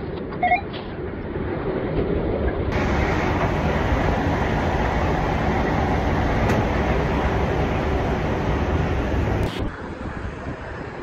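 Steady rumbling noise of a rail train running in a station, dropping to quieter ambience near the end.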